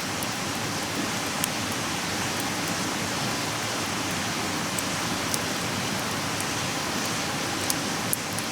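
Wood campfire crackling and hissing steadily, with several sharp pops scattered through.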